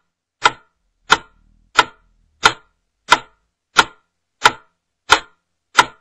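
Cardiaid AED's compression metronome ticking evenly, about three short clicks every two seconds, pacing chest compressions during CPR.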